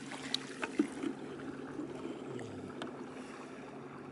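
Flowing water running steadily under a low steady hum, with a few sharp clicks or small splashes, the loudest about a second in.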